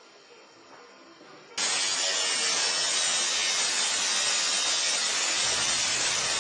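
Ryobi ONE+ 18-volt cordless angle grinder grinding a steel lawnmower blade to sharpen it: a steady, harsh grinding hiss that cuts in abruptly about a second and a half in, after a faint stretch.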